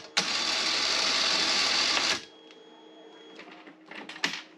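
A small electric motor switched on just after a click, buzzing steadily for about two seconds and then cutting off suddenly.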